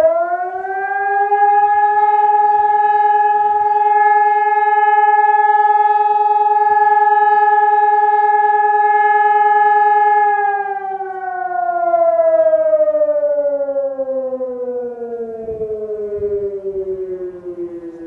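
Hörmann ECN 600 electronic civil-defence siren sounding a test alarm: a loud steady tone that rises quickly at the start, holds level for about ten seconds, then slowly falls in pitch as it winds down.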